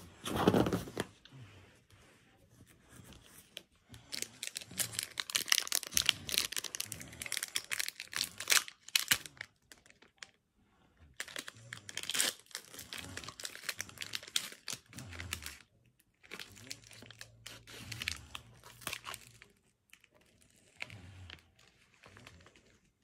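Foil booster-pack wrapper crinkling and being torn open in irregular bursts of rustling, with a brushing thump right at the start.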